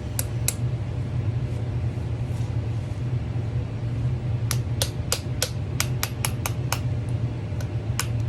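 Sharp light clicks, two near the start, a quick run of about ten in just over two seconds past the middle, and one more near the end, over a steady low hum.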